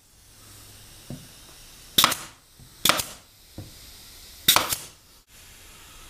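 Pneumatic nail gun firing three sharp shots, about two, three and four and a half seconds in, driving nails through a thin wooden runner strip into the frame. There are a couple of lighter knocks of wood being handled in between.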